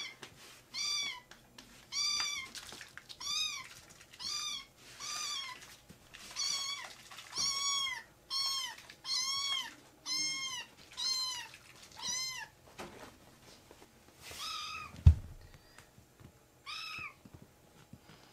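Young kittens mewing over and over, short high calls that rise and fall, nearly one a second, then more sparsely after a pause. A single sharp thump about 15 seconds in.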